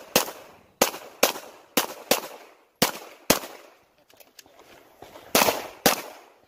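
Glock 34 Gen 5 9mm pistol firing about nine shots, mostly in quick pairs about half a second apart, each with a short echo, with a pause of about two seconds before the last pair.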